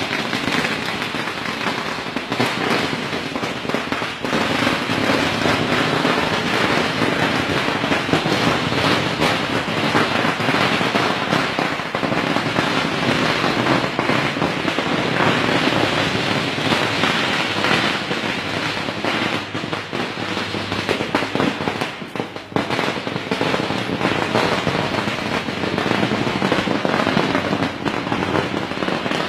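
A long string of firecrackers going off in a continuous, rapid crackle of small bangs, with a brief dip about two-thirds of the way through.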